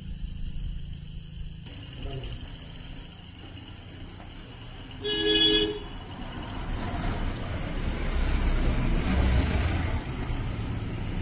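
A steady, high-pitched chorus of crickets trilling. About five seconds in, a vehicle horn sounds once, briefly, and a vehicle engine's low rumble grows louder toward the end.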